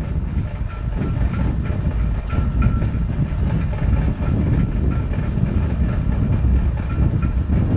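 Wind buffeting the microphone: a low, uneven rumble that swells and falls, with faint short high ticks every so often.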